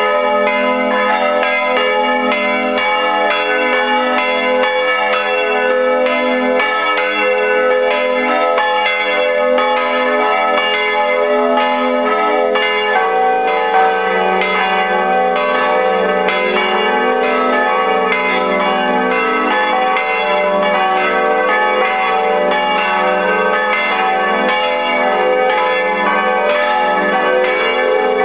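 Five large bronze church bells of a cathedral tower swinging and ringing together in full peal, heard close up in the belfry as one continuous dense clangour of overlapping tones. About halfway through, the lowest tones shift.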